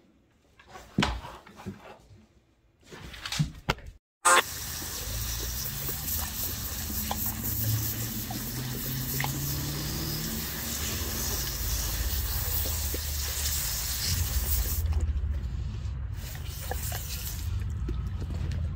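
A few short knocks and scuffles, then a garden hose's spray nozzle spraying water steadily from about four seconds in, with a low rumble under the spray. The spray's hiss thins about fifteen seconds in.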